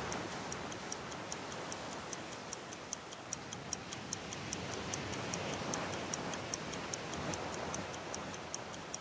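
Surf washing up the beach, swelling and easing, with a fast, even ticking of about five ticks a second.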